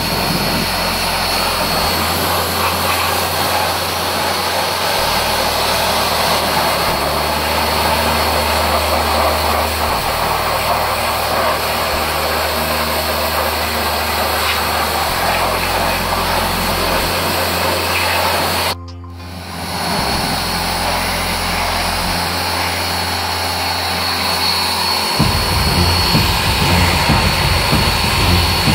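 Vax electric pressure washer running, its lance jet hissing steadily as it rinses snow foam off a car's wheel and bodywork. The spray cuts out for about a second partway through, then starts again.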